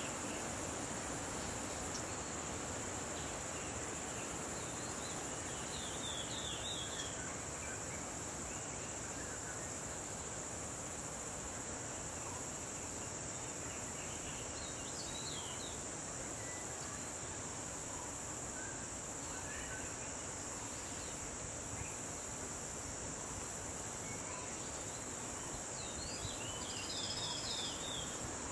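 Steady high-pitched chorus of insects such as crickets or cicadas over an even background hiss, with a few short bird calls, the clearest near the end.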